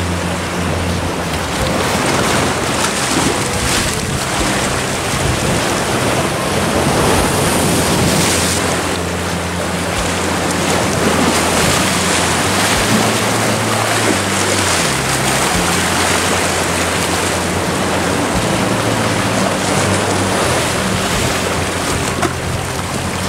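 Small waves breaking and washing up a sandy beach in a steady rush of surf, with wind on the microphone.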